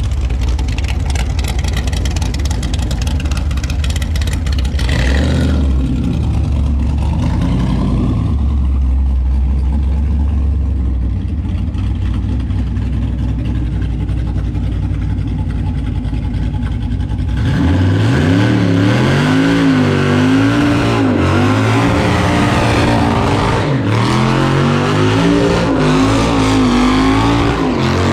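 A car's V8 engine running steadily, then, about two-thirds of the way in, revving up and down over and over.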